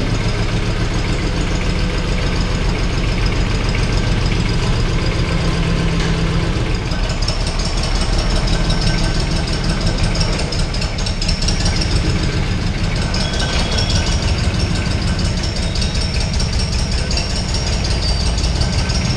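Massey Ferguson 6028 compact tractor's diesel engine idling steadily.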